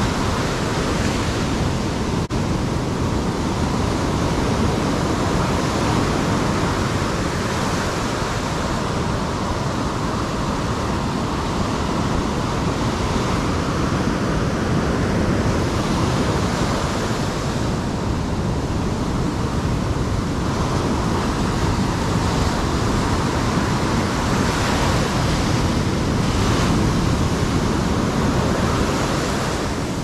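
Big ocean surf breaking and washing around the shallows: a steady rush of white water that swells and eases slightly as the waves come through.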